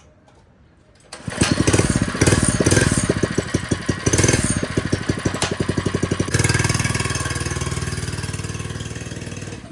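Mini bike's swapped-in 224 cc single-cylinder engine catching about a second in and running with rapid even firing, revving at first, then settling to a steadier, slowly fading run about six seconds in.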